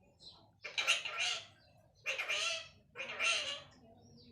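Pet parrot calling three times in short, harsh squawks.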